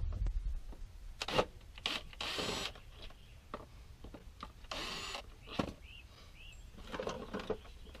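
Hard plastic catch-basin fittings and grates being handled and fitted together: a few sharp clacks and two short scraping rasps.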